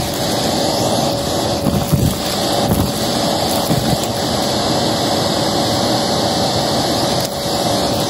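Vacmaster vacuum running with a steady whine, its bare hose tube sucking up dirt, grit and small debris from a carpet, which crackles and rattles as it is drawn into the tube.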